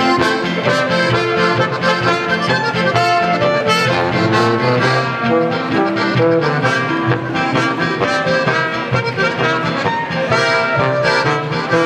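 A traditional Bavarian beer-hall band playing, brass such as trumpet and tuba leading over accordion and guitar, with a steady beat.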